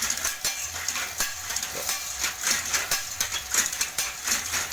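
Satay skewer-making machine running, with a dense, irregular clatter of rapid clicks and rattles over a low hum.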